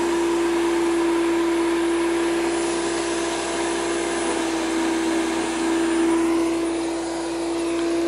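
Powersmart PS10 electric chipper shredder running steadily, its motor giving an even, unchanging whine.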